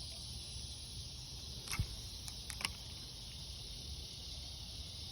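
Steady high chorus of insects chirring, with a few sharp clicks about two seconds in.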